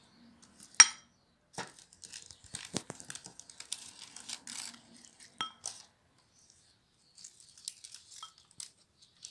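Silicone pastry brush brushing over a sesame-topped pie on baking paper: scratchy rustling in two spells, with a sharp click about a second in.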